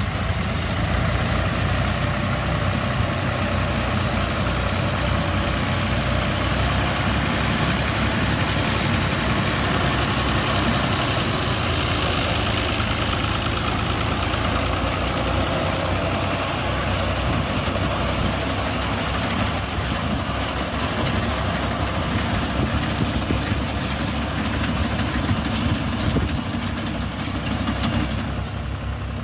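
Tractor diesel engine running steadily under load, driving a front-mounted reaper binder through standing wheat. The binder's cutting and binding mechanism adds to the noise.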